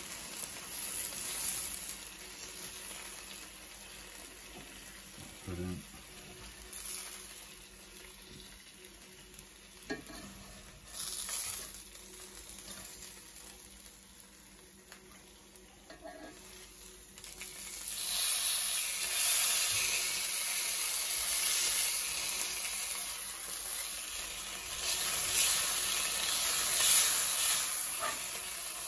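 Steak and black pudding sizzling in a hot cast iron pan that is off the heat, with a few knocks of tongs against the pan. The sizzle grows louder past the middle.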